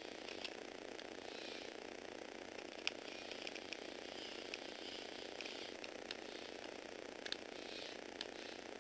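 Electric motor and plastic gears of a Lego Technic motorbike model whirring faintly as it drives, with irregular sharp clicks, the loudest about three seconds in.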